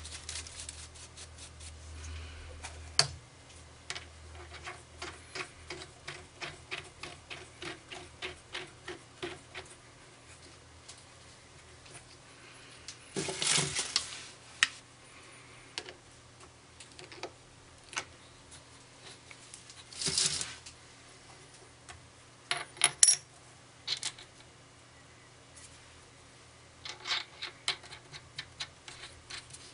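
Small steel parts handled by hand on a lathe setup: metal clicks and taps as a threaded stud is fitted into a steel plate and a washer and nut are put on it. There is a run of even ticking early on, and two louder rattling bursts near the middle.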